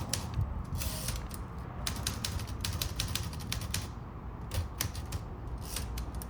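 Smith-Corona Skyriter manual portable typewriter being typed on: irregular runs of sharp key strikes, several a second, broken by short pauses.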